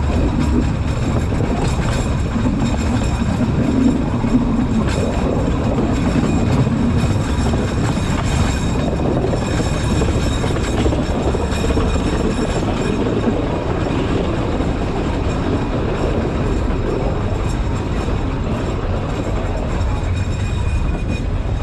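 Alishan Forest Railway narrow-gauge train running along the track, heard from the front of the train: a steady low rumble of wheels and running gear with occasional clicks.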